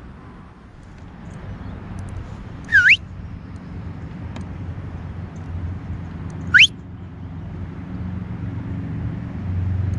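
A person whistling twice, about four seconds apart: short, loud, upward-sweeping whistles to hail a companion. Underneath, a low steady hum slowly grows louder.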